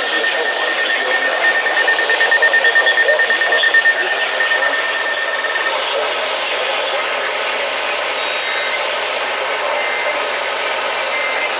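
Electronic alert tone over a steady hiss of broadcast static. The tone pulses rapidly for a couple of seconds and fades out about halfway through, leaving the hiss.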